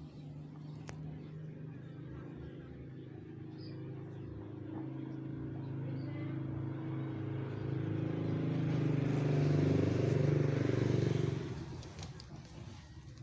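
Engine of a motor vehicle going by, a steady hum that grows louder for several seconds and then dies away about eleven seconds in.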